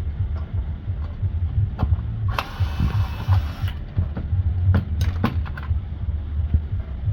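Scattered clicks and knocks of metal parts and tools being handled on an opened circuit board, over a steady low hum, with about a second of hiss near the middle.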